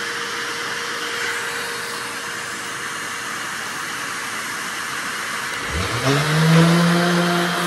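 Random orbital sander with a dust hose switched on near the end, its motor whine rising quickly to a steady pitch over a steady rushing noise.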